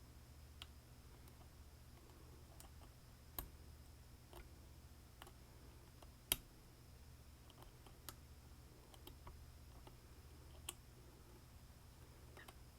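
Irregular small metallic clicks and taps of a lock pick and tension tool working in the wafer lock cylinder of a 1972 Rolls Royce Silver Shadow door lock, about ten in all. The sharpest click comes about six seconds in. A low steady hum sits underneath.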